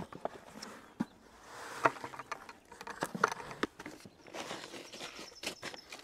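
Soil being tipped from a plastic bucket: soft rushing of soil sliding out, with scattered light knocks and clatters from the bucket being handled.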